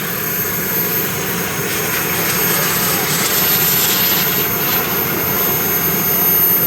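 RC model jet's turbine engine running, with a steady high whine throughout and a rushing swell of jet noise about two to four seconds in.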